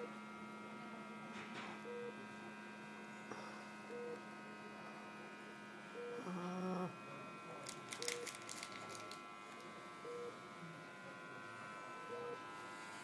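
Short electronic beep on one steady pitch about every two seconds from hospital monitoring equipment, over a steady electrical hum. A brief moan comes about halfway through, and a few sharp clicks follow shortly after.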